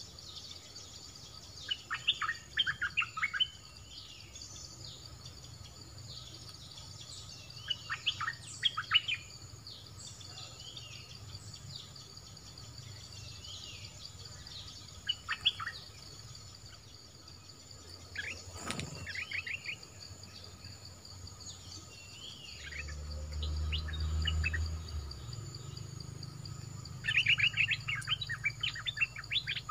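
Bulbul singing short bursts of rapid chirping notes every few seconds, over a steady high insect drone.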